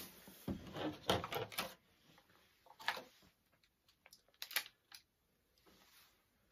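Thin plastic clamshell donut packaging crackling and clicking as it is handled and opened and donuts are lifted out. A dense run of sharp crackles comes in the first two seconds, then scattered clicks.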